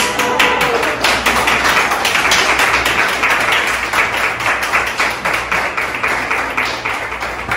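A small crowd applauding: many hands clapping steadily throughout.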